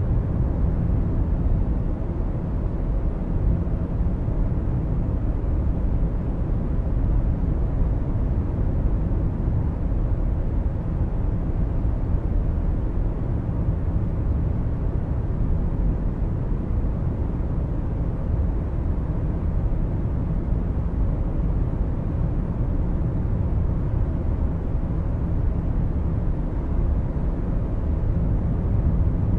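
Car driving at motorway speed, heard from inside the cabin: a steady low rumble of tyre and road noise with wind, unchanging throughout.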